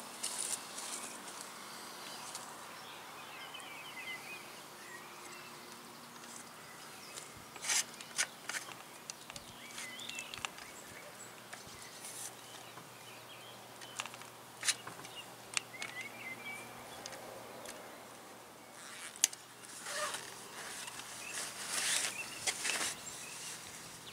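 Small birds chirping and singing on and off over a faint outdoor hiss, with scattered sharp clicks and rustles from gear being handled, most of them in the second half.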